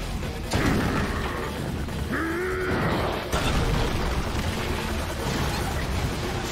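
Anime fight-scene sound effects: a steady low rumble, with sudden crashes about half a second in and again about three seconds in, and a short cry about two seconds in.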